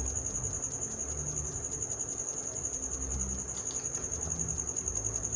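An insect, such as a cricket, trilling steadily in a high, evenly pulsing tone, with a low hum beneath.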